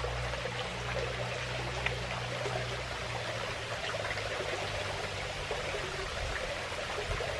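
Creek water running steadily, with a steady low hum underneath.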